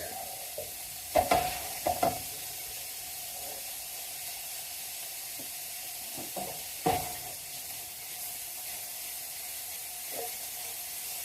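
Mince frying and sizzling in a frying pan with a steady hiss, stirred with a utensil that knocks against the pan a few times.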